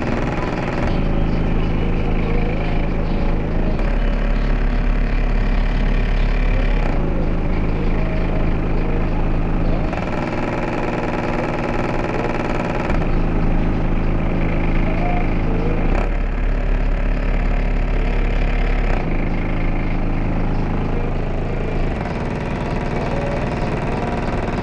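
Two Sundown NSV4 15-inch car subwoofers playing a very deep bass track loud, with the vehicle's rear hatch and trim buzzing and rattling under the bass. The sound changes abruptly every three seconds or so, with the lowest notes strongest in a few stretches.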